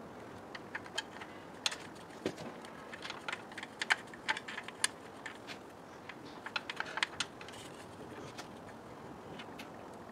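Irregular light clicks and taps of screws and small parts being handled and fitted by hand. They come in loose clusters, thickest in the middle.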